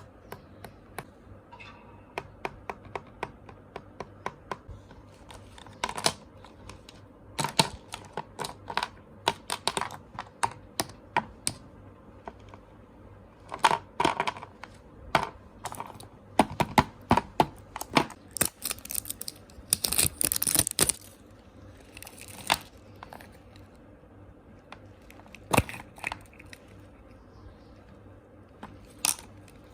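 Small hard objects being handled: irregular clicks and taps in clusters, with a longer crinkly rustle about twenty seconds in.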